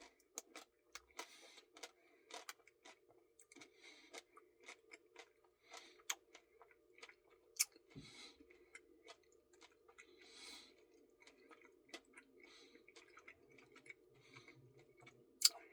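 A person chewing a mouthful of Caramel Truffle Blizzard ice cream: faint wet mouth sounds with many small, irregular clicks and crunches, a few sharper ones among them.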